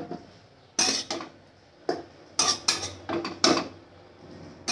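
Stainless-steel kitchen utensils clinking and knocking against steel vessels in a scattered series of about seven short, sharp clatters.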